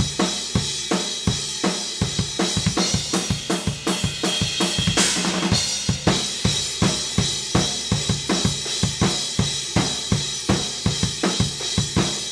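Acoustic drum kit being played in a busy, steady groove, several strokes a second, recorded raw through a single Shure SM57 placed as a close room mic. A cymbal crash rings out about five seconds in.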